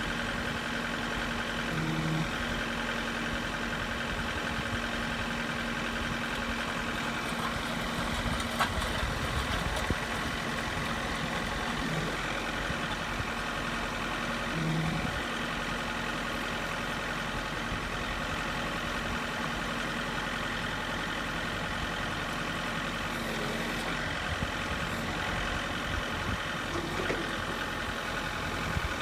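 John Deere 4066R compact tractor's three-cylinder diesel running steadily with the PTO engaged, turning a 3-point post-hole auger boring into hard limestone. A few light knocks come about nine seconds in.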